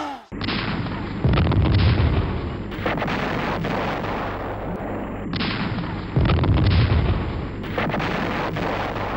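Battle sound effect of artillery and gunfire: a continuous rumble of shots and blasts with two heavy booms about five seconds apart.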